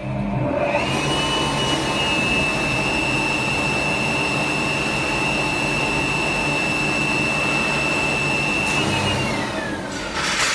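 A motor-driven machine running with a rushing noise and a high whine: it spins up about a second in, runs steadily, then winds down with a falling whine, followed by a short burst of rushing noise near the end.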